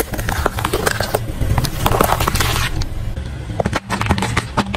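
A car tyre slowly crushing bell peppers and then eggplants: a run of crackling, snapping and squelching over the low rumble of the car.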